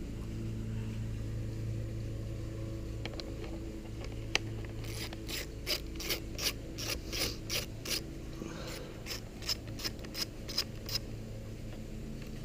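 Hand ratchet with an 8 mm socket working a motorcycle battery terminal bolt: two runs of evenly spaced clicking, about three strokes a second.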